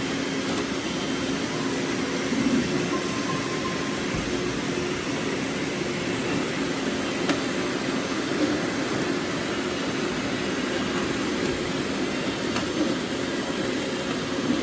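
Robot vacuum cleaners running: a steady whirring hum of suction motors and brushes, with a few light clicks.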